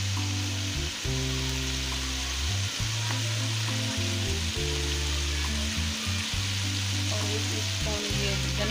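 Onion and tomato masala sizzling steadily as it fries in oil in a metal wok, under background music with long held low notes.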